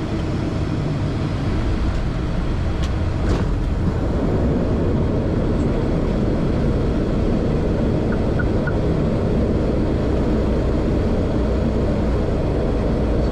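Steady engine and propeller noise inside an ATR 72 turboprop cockpit during the landing roll along the runway, with a couple of short clicks about three seconds in.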